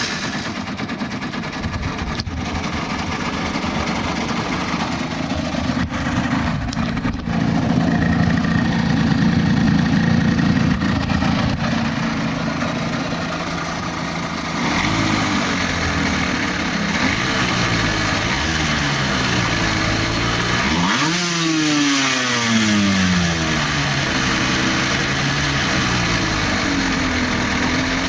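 Yamaha TDR 125's two-stroke single-cylinder engine running hard while riding, under a steady rushing noise. In the second half its pitch rises and falls repeatedly, with a sharp climb followed by long falling glides as the revs drop.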